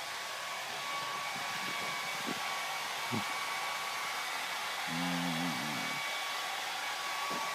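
Hair dryer running steadily, with a dachshund howling along: a short wavering howl about five seconds in, after a brief yelp-like sound near three seconds.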